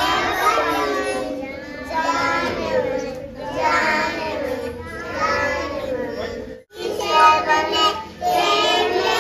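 Children singing, with sustained wavering sung notes. The singing breaks off for an instant about two-thirds of the way through, then carries on.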